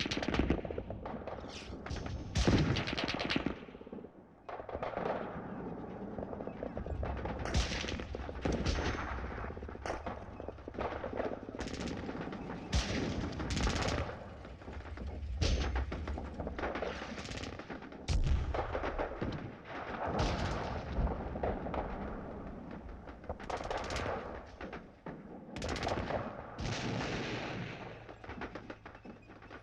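Gunfire: repeated bursts of rapid machine-gun fire and heavier single shots throughout, over a steady low rumble.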